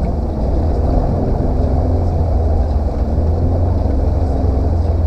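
Jeep engine running steadily at low speed as the vehicle wades through standing marsh water, a deep even rumble with a wash of noise over it.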